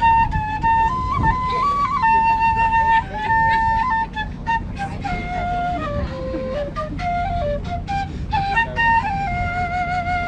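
A wind instrument playing a slow melody, one held note after another, the tune stepping lower about halfway through, over a steady low rumble.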